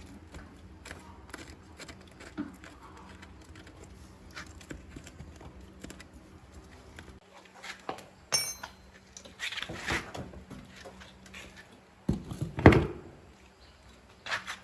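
Tools and metal motorbike parts being handled: scattered knocks and clicks, a ringing metal clink about eight seconds in, and a heavier thump about twelve and a half seconds in. A faint low hum stops about halfway through.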